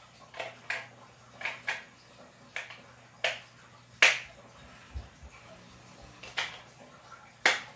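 Sharp plastic clicks and snaps as AA batteries are pushed into the battery compartment of a handheld 2.4 GHz RC transmitter: about ten clicks, the loudest about four seconds in and near the end, with a dull thump about five seconds in.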